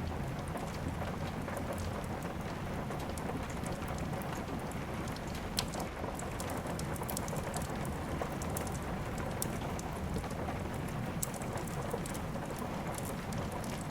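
Steady rain mixed with a wood fire crackling, sharp pops scattered throughout, one louder pop about five and a half seconds in.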